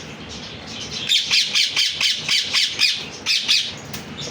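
Parrots squawking: a rapid run of short, harsh, high-pitched calls, about four or five a second, starting about a second in and dying off near the end.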